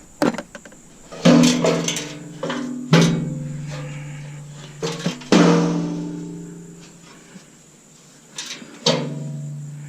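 Stainless steel sheet-metal parts of a coffee maker being knocked and set down, clanging: four loud strikes with lighter knocks between, each leaving a pitched metallic ring that slowly fades.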